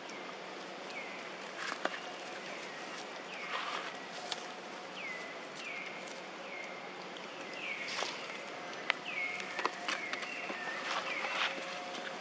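Outdoor ambience with a string of short, high animal calls, each falling in pitch, repeated about once or twice a second, with scattered light taps and rustles.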